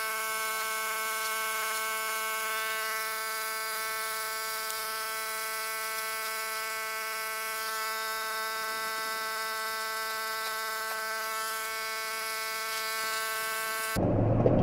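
Pressure washer running, a steady, unchanging buzzing hum with a light hiss of spray, as it cleans a truck's radiator and intercooler.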